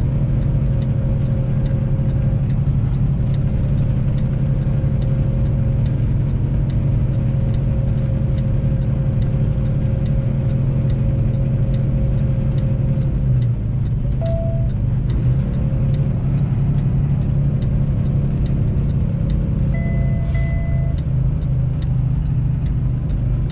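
Semi truck's diesel engine droning inside the cab while holding the truck back on a downhill mountain grade in sixth gear, with the Jake (engine) brake on. The drone drops slightly about halfway through. There is faint ticking throughout and two short beeps, one a little past halfway and one later.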